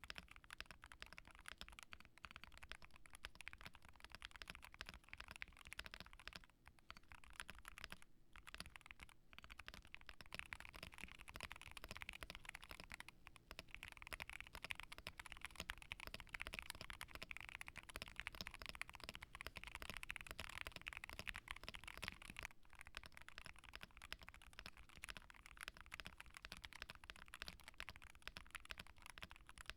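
Fast typing on a Keychron Q1 HE mechanical keyboard with Hall-effect magnetic switches and double-shot OSA keycaps: a dense, continuous clatter of keystrokes. There are brief pauses about 8, 13 and 22 seconds in.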